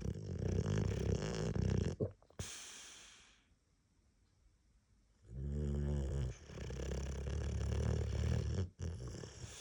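Boxer dog snoring in its sleep: two long rattling snores with a short hissing breath out about two seconds in and a quiet pause between them.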